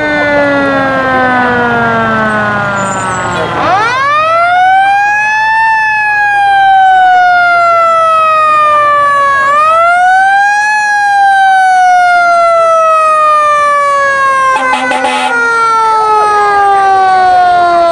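Fire truck's Federal Q mechanical siren wailing: it winds up quickly about four seconds in and again about ten seconds in, each time coasting down in a long, slowly falling wail. A short air-horn blast sounds about fifteen seconds in.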